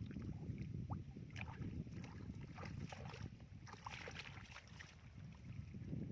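Water and mud sloshing and splashing in a shallow muddy field, over a low, uneven rumbling noise, with scattered small splashes and clicks.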